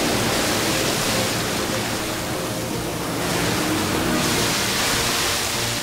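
A steady rush of sea water, an ocean sound effect that swells a little after about three seconds.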